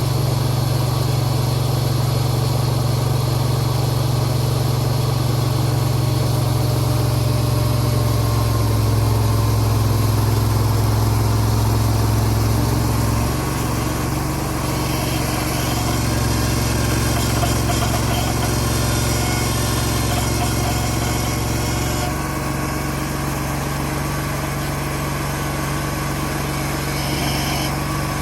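Diesel engine of a Bobcat 7753 skid steer running steadily. Its note changes about 13 seconds in and again about 22 seconds in, where it gets a little quieter.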